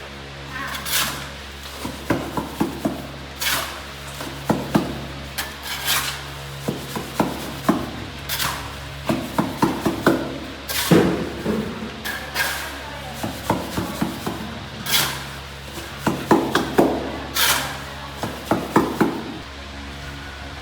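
Repeated scraping strokes about every two and a half seconds, with clusters of knocks and clatter between them, over a low steady hum: manual work with hand tools.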